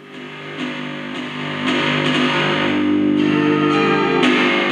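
Music playing through the repaired Pioneer SX-950 receiver into small plastic test speakers. It swells from quiet to loud over the first two seconds as the volume knob is turned up, then plays on steadily.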